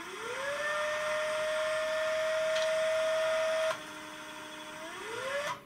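Stepper motor of an SP-668 UHF antenna filter driving the variable-capacitor shaft through its gear train, setting a new filter frequency. Its whine rises in pitch as it speeds up in the first half-second and holds steady. Just before four seconds it drops lower and quieter, then rises again and stops near the end.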